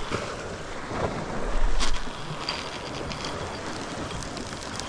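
Wind buffeting the microphone over the wash of the sea against the rocks, with a strong gust about a second and a half in.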